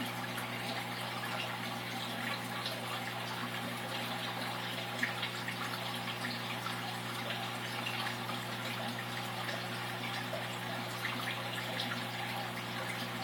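Aquarium filter running: a steady trickle and splash of water with a low hum underneath.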